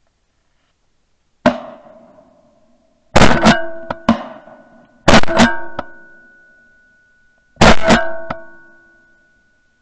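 Music: loud percussive hits with ringing guitar-like chords. A single hit comes about a second and a half in, then three double hits about two seconds apart, each chord ringing on and fading.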